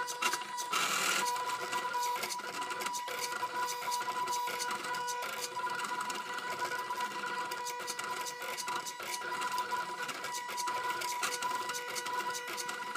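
Stepper motors of salvaged CD/DVD-ROM drives in an Arduino pen plotter, whining with steady tones and dense rapid ticking as they step the pen and paper bed through a drawing. A brief noisy burst about a second in.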